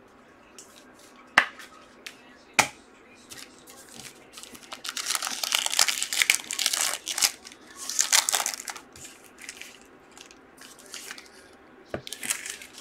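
Foil wrapper of a trading-card pack being torn open and crinkled by hand, with dense crinkling from about five to nine seconds in and again near the end. Two sharp clicks come before it, about a second and a half and two and a half seconds in.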